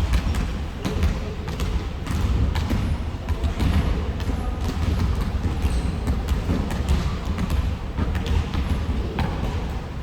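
Basketballs bouncing on a gym floor: many irregular knocks, several balls at once, over a constant low rumble of the hall.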